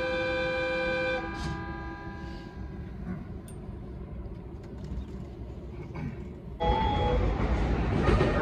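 JR East E233 series train's horn sounding a steady, many-toned chord that cuts off about a second in and echoes away. Near the end, after a cut, a louder steady rushing noise of an E353 series train running in begins suddenly.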